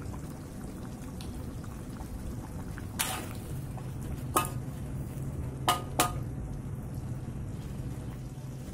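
A metal utensil stirring chicken in sauce in a wok, with four sharp clinks of metal against the wok between about three and six seconds in. A steady low bubbling of the simmering sauce runs underneath, and a low steady hum comes in about three and a half seconds in.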